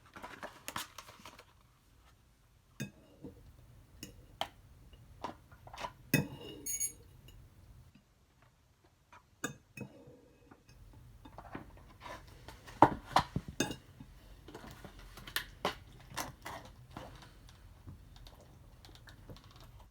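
Scattered clicks, taps and scrapes of a fork against a plate and a takeout container as food is moved between them. They come thickest about six seconds in and again a little after twelve seconds.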